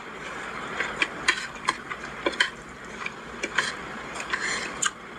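A person chewing a mouthful of rice and ground beef close to the microphone: irregular wet mouth clicks and smacks, a few a second.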